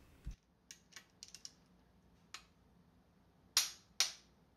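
Torque wrench on the connecting-rod cap bolts of a Ford Coyote 5.0 V8: a few faint ticks, then two sharp clicks about half a second apart near the end as the wrench reaches its set torque.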